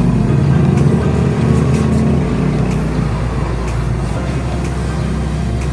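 A steady low engine rumble, as from a motor vehicle running nearby.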